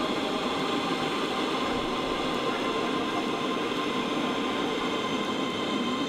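Metro train pulling into an underground station platform: a steady running noise with a high whine of several steady tones.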